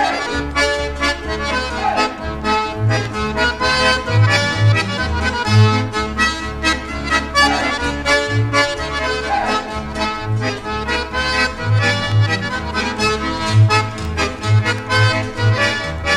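Recorded accordion polka: an accordion plays a lively, quick-moving melody over a bass line that keeps a steady beat.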